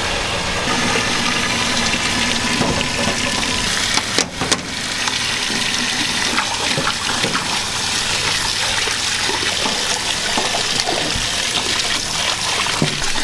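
Tap water gushing steadily into a stainless-steel sink of blanched soybean sprouts, splashing as a hand churns the sprouts to rinse them, with a brief break about four seconds in.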